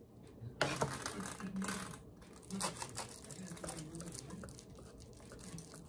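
A knife scraping and cutting through a slab of baked ngou'a on aluminium foil. It comes as two bursts of scratchy noise, the first starting about half a second in and the second near the middle, followed by a few lighter scrapes and clicks.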